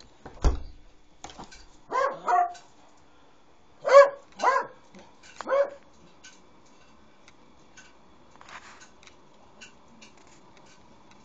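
Jack Russell terrier barking five times, excited by the kitchen window being opened: a pair of barks about two seconds in, then three more between four and six seconds in. A single thump comes about half a second in, and a few faint clicks follow the barking.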